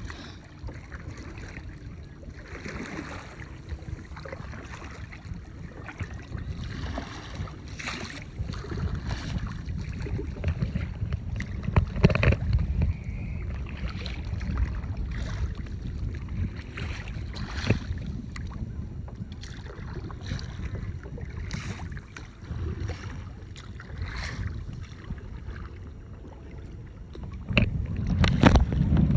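Wind on the microphone over choppy river water, with kayak paddle splashes and small waves slapping the hull every second or two. The loudest splashes come about twelve seconds in and again near the end.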